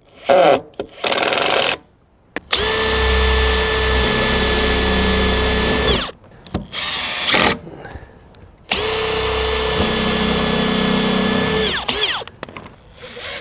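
Cordless drill running at a steady speed in two runs of about three seconds each, boring into the skate box's square coping, each run winding down in pitch as the trigger is released. A few short bursts come in the first two seconds.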